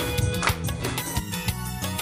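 Upbeat music with a steady beat, with people clapping along in the first second. About a second in, the sound switches to a cleaner-sounding backing track.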